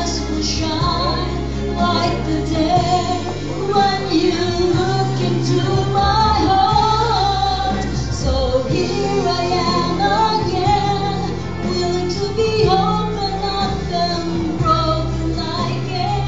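A woman singing a song into a microphone over instrumental accompaniment, her voice rising and falling in long phrases above steady held bass notes.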